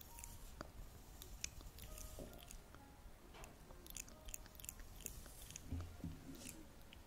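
Faint, close-up wet clicks and crackles, scattered irregularly, typical of ASMR trigger sounds.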